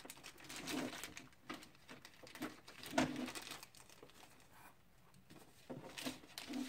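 Clear plastic parts bag crinkling and rustling as it is handled, in a few short irregular bursts, the loudest about three seconds in.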